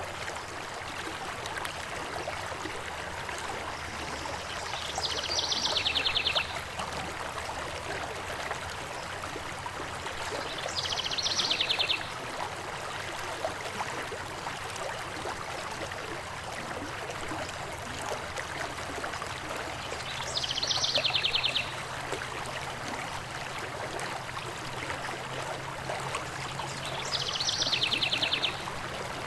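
Stream water running steadily, with a bird's rapid, buzzy trill of about a second and a half repeated four times, several seconds apart, standing out loudest above the water.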